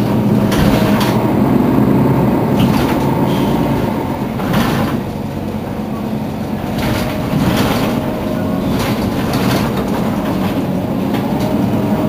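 Mercedes-Benz Citaro city bus's diesel engine idling steadily while the bus stands at a stop, with a few short hisses over the engine sound.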